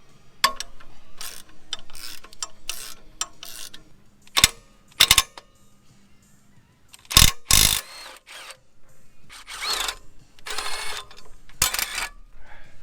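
Hand ratchet wrench clicking in short irregular bursts as bolts holding an engine accessory bracket are backed out of the cylinder head, with a few louder sharp clacks among them.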